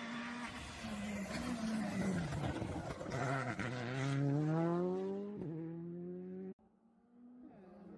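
Rally car engine at full stage pace coming past: the engine note dips, then climbs steeply as it accelerates hard, with one gear change about five and a half seconds in. The sound cuts off suddenly about six and a half seconds in.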